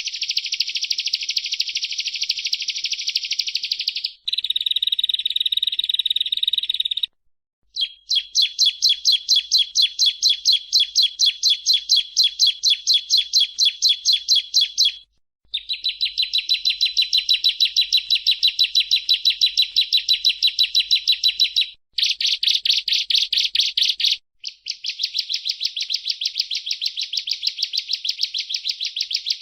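Bar-winged prinia (ciblek) singing: long runs of fast, rapidly repeated high chirps, in phrases a few seconds long with brief breaks between them.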